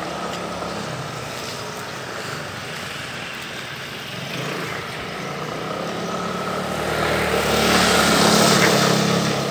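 Motor scooter engine running as the scooter rides around a wet paved lot, growing louder as it approaches and passing close about eight seconds in, with a hiss of tyres on the wet paving as it goes by.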